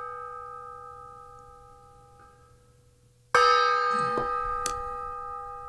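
A bell struck and left to ring out slowly, then struck again about three seconds in, louder, and left ringing.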